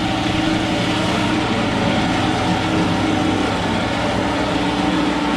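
Air compressor running steadily with a rapid low pulsing, and a grinder whining over it as exhaust ports are cleaned up; the grinder's tone eases off briefly near the middle and then comes back.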